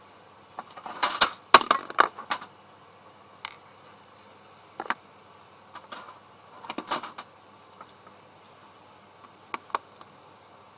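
Irregular clicks and clatter of small hard objects being handled, with a burst of rattling about a second in and single clicks scattered through the rest.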